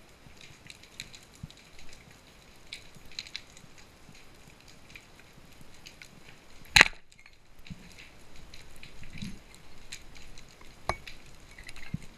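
Underwater scene: a constant faint crackle of small clicks from the reef. About seven seconds in there is one loud, sharp crack, the speargun firing; a smaller click follows a few seconds later.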